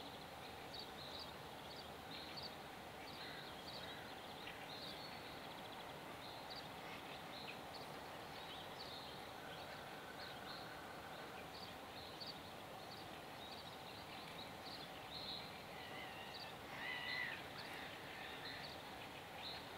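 Quiet garden ambience: a steady hiss with small birds chirping in short high notes again and again, and a louder bird call about sixteen seconds in.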